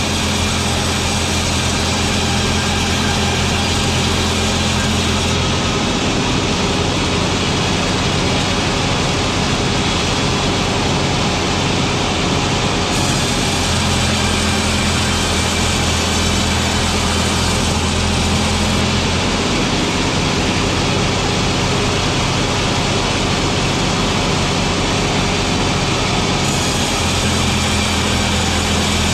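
Production machinery running steadily with a low hum, its tone changing every several seconds in a repeating cycle.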